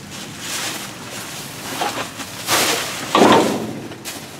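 Plastic bags and trash in a dumpster rustling and crinkling as they are dug through, with a louder crunch of plastic just after three seconds in.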